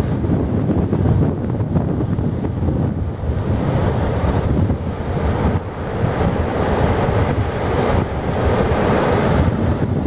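Atlantic surf breaking and washing up the beach, with wind buffeting the microphone throughout. The hiss of the surf swells twice, around four seconds in and more strongly near the end.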